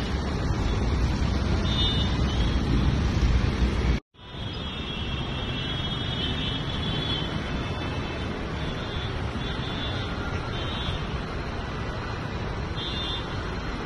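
Steady street traffic of motor scooters and cars at a city junction, with short high-pitched toots now and then. The sound cuts out for a moment about four seconds in, then the traffic carries on.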